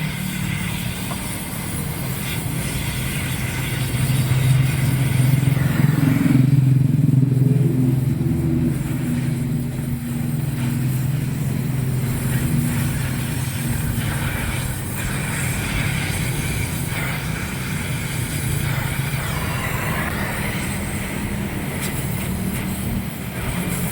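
Engine running steadily, swelling louder for a few seconds about five seconds in.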